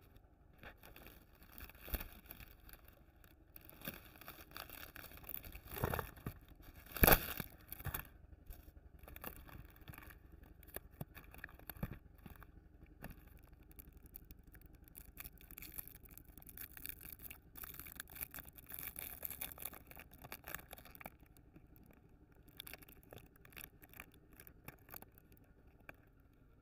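Foil candy wrappers crinkling and rustling as chocolates are handled and one is unwrapped, with many sharp clicks and taps, the loudest about seven seconds in.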